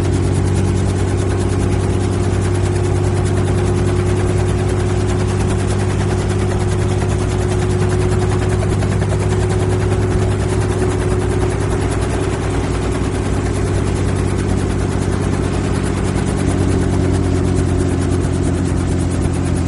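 Helicopter heard from inside the cabin: a steady low engine and rotor drone with a fast, even rotor beat, whose tones shift slightly near the end.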